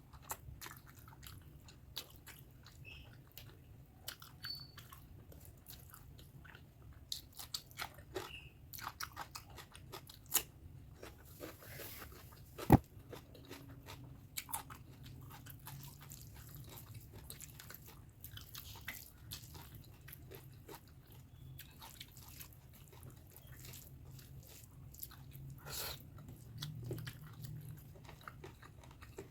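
Close-miked chewing and mouth smacks of a person eating pork fat curry with rice, with irregular wet clicks. One sharp click about twelve seconds in stands out as the loudest sound.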